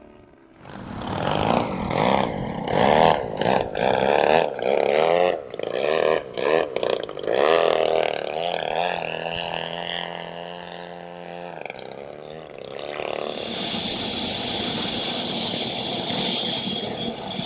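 Engine and propeller of a large aerobatic RC propeller plane, revved up and down in quick surges during hovering aerobatics, then holding a steadier, lower note. From about 13 seconds in, the high whine of a model jet turbine joins and slowly rises in pitch.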